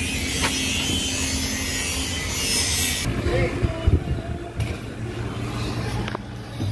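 Shipyard work noise: a steady hiss, like sanding or sawing, that cuts off suddenly about three seconds in, then a lower rumble with a few knocks.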